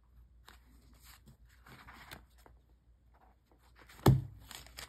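Thin Bible pages rustling and flicking as they are leafed through by hand, with one sharp thump about four seconds in as the book is handled.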